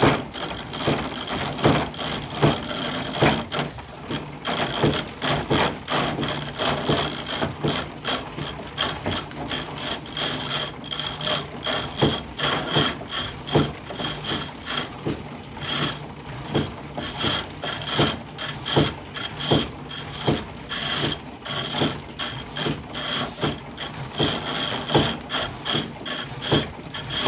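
Foot-treadle wood lathe running, a hand tool scraping into the spinning wooden workpiece, with a rhythmic knocking about twice a second from the pumped treadle and the loose-jointed wooden frame rocking with each stroke.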